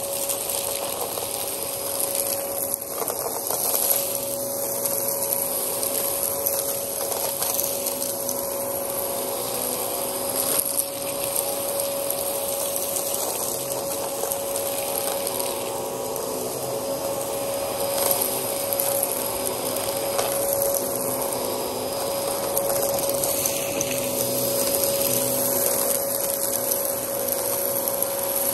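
Dyson DC14 upright vacuum cleaner running steadily with a constant motor whine, its cleaner head working over a gritty carpet, with occasional clicks as grit and dirt are picked up.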